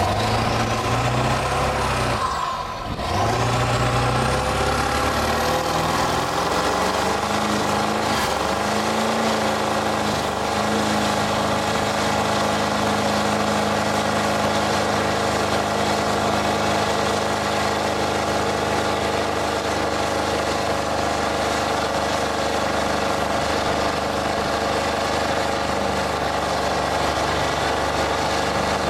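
Ford F-250 turbo-diesel V8 revved hard in a burnout, its rear tyres spinning on the pavement and making smoke. The revs rise and fall over the first couple of seconds and dip briefly about three seconds in, then the engine holds a steady high rev under a constant rush of tyre noise.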